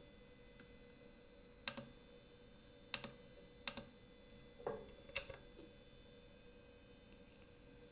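Several sharp clicks, mostly in quick pairs, a second or so apart, like computer keys being pressed, with one duller knock about two-thirds through. A faint steady electronic whine runs underneath.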